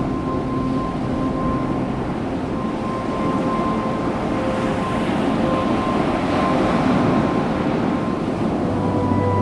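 Ambient background music of long held drone notes over a steady rushing noise like wind and surf. A deeper bass note comes in near the end.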